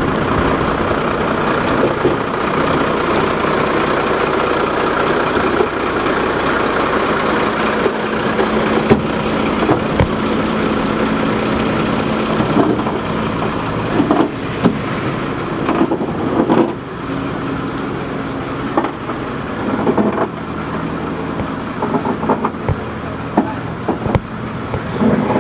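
Large vehicle engine idling steadily with a constant low hum, joined from about halfway on by scattered knocks and clanks.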